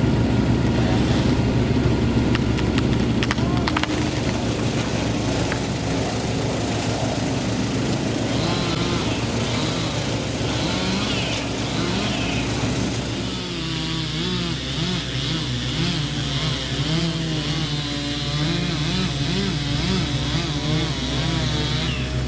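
A machine's engine running steadily; about halfway through, its pitch starts wavering up and down, as under changing load.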